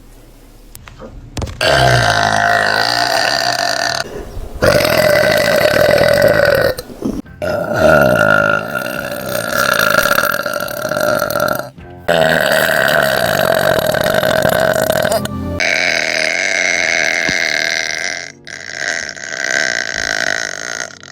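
Loud, deliberate burps, one after another: about five drawn-out belches, each held for roughly three to four seconds with short breaks between.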